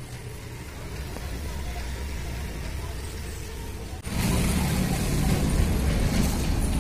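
Steady low background rumble with no distinct source, which steps up abruptly louder and fuller about four seconds in.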